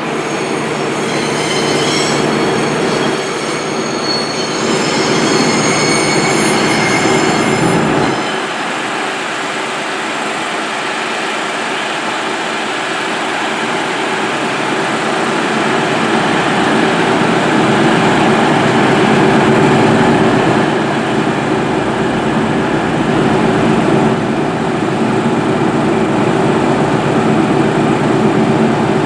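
A Class 222 Meridian diesel train arriving with a high-pitched wheel squeal. About eight seconds in, the sound changes sharply to the steady running of a stationary HST Class 43 diesel power car close by, swelling and easing a little.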